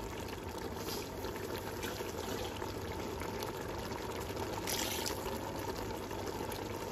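Beef with tomato and green-chilli paste cooking in oil in a pot, a steady bubbling sizzle with a faint crackle or two, at the frying-down (bhuna) stage of the masala.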